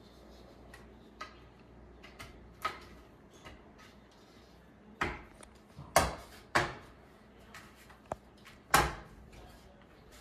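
Plastic clicks and knocks of a 120 mm computer fan being handled and pressed down by hand onto plastic push pins in a fan grill. A few light clicks at first, then several sharper snaps and knocks in the second half, the loudest about six seconds in and near the end.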